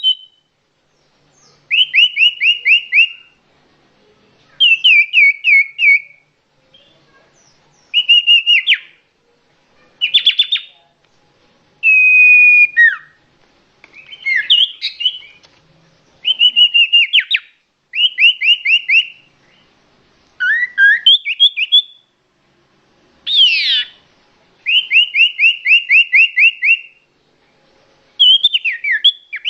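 A songbird singing loud, short phrases of rapid whistled notes, roughly one phrase every two seconds with brief pauses between, the phrases varying: fast trills, sweeping whistles and chattering notes.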